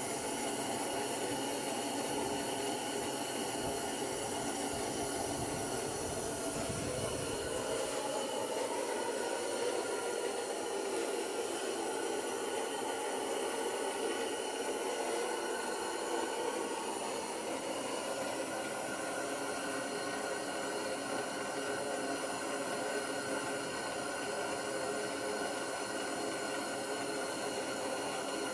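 Steady hiss of freezing rain and ice falling on the blind and the ice-coated woods. A low rumble underneath dies away about eight seconds in.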